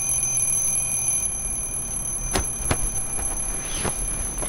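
Twin-bell alarm clock ringing steadily at a high pitch, then cutting off suddenly at the end. Two sharp knocks come a little past halfway through.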